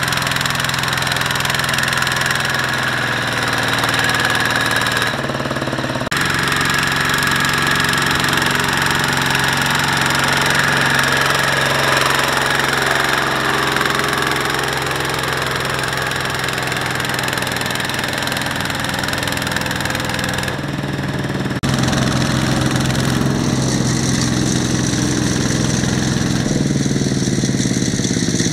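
Single-cylinder diesel engines of two-wheel walking tractors running steadily under load, hauling trailers through deep mud. The engine note shifts abruptly about 5 seconds in and again about 21 seconds in.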